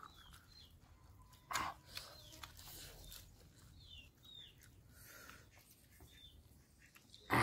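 Quiet eating with the hands: a wet smack of the lips about a second and a half in and faint chewing. Small birds chirp now and then in the background with short falling notes.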